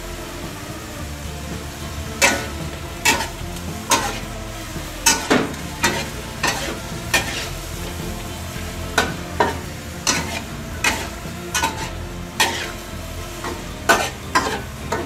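Metal spatula scraping and clanking against a steel wok while stir-frying green beans and pork, over a steady sizzle. The strikes begin about two seconds in and come irregularly, roughly one or two a second, each ringing briefly.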